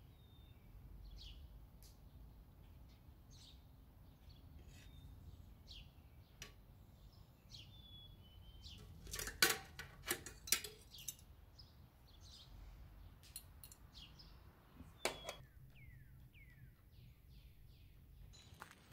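Faint chirping of small birds, short calls throughout, several falling in pitch. A few sharp clinks of a metal spoon and fork on a metal plate come about nine to eleven seconds in, and once more around fifteen seconds.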